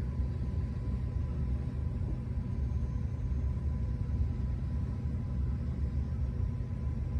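Steady low background rumble with a faint, even hum.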